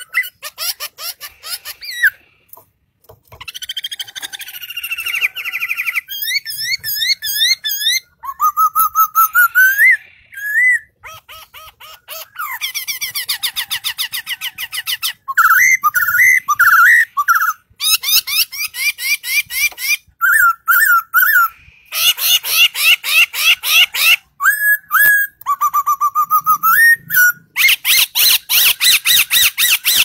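Caged songbird singing a long, varied song: fast trills and chattering runs of rapidly repeated notes, mixed with rising whistled phrases, broken by a few short pauses.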